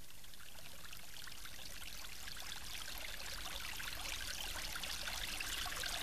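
Water running and splashing steadily at a frozen waterfall, a fine trickling hiss that grows slightly louder.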